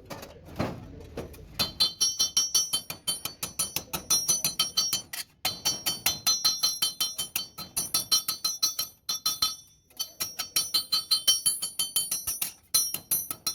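Rapid hammer blows on sheet-metal bodywork, about six a second, each strike ringing at the same few high pitches, with two short pauses.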